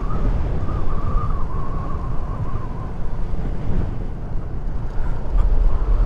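Wind buffeting the microphone while riding a maxi-scooter, with the engine's steady drone underneath. A faint wavering high whine runs through the first half.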